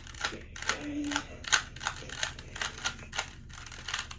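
Plastic Rubik's-branded 3x3 cube being turned quickly by hand to scramble it, its layers clicking several times a second in an uneven rhythm.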